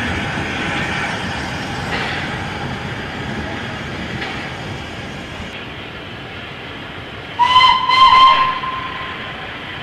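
Train running along the track, its noise slowly fading, then a steam locomotive's whistle gives two short blasts near the end, the loudest sound.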